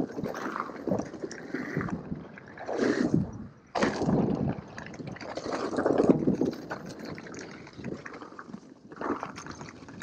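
Mountain bike riding over a dirt singletrack: tyres crunching on dirt and the bike rattling over bumps, in uneven surges with a brief lull about three and a half seconds in.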